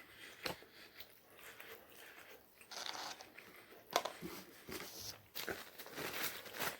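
Close-up eating sounds: biting and crunchy chewing of fast food, with sharp crunches throughout and the loudest about four seconds in.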